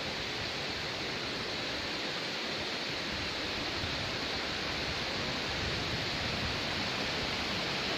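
Steady, unbroken rush of falling water from a tall waterfall close by.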